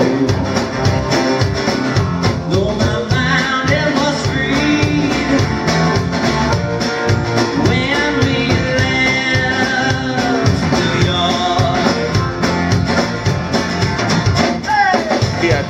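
Live band playing: a man singing over acoustic guitar and a drum kit keeping a steady beat.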